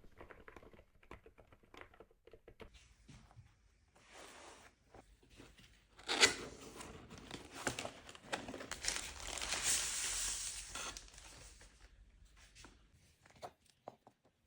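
Crinkling and tearing of packaging, loudest in a long rustling stretch from about six to eleven seconds, with light clicks and knocks of handling before and after.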